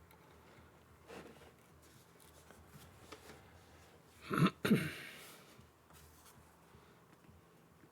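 Handling noise from a cable being plugged into a mechanical keyboard: faint rustles and small ticks, then a louder double scrape about four and a half seconds in.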